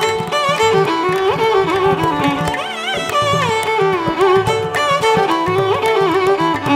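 Background instrumental music in an Indian classical style: a lead melody of sliding, wavering notes over light percussion.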